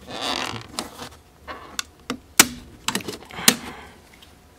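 A snap-on screwless plastic wall plate being pulled off a double-gang switch box: a short scraping rustle, then a string of sharp plastic clicks and snaps, the loudest about two and a half seconds in.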